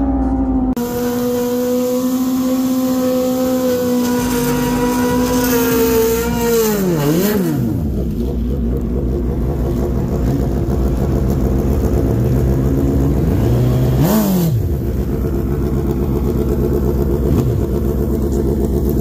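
A drag-racing sportbike engine held at steady high revs for several seconds. About seven seconds in it is blipped down and back up, then settles to a low, steady run. Around fourteen seconds in there are a few more throttle blips.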